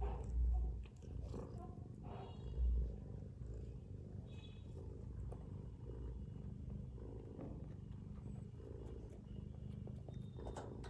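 Mother cat purring: a steady low rumble, with two heavy low thumps about half a second and nearly three seconds in.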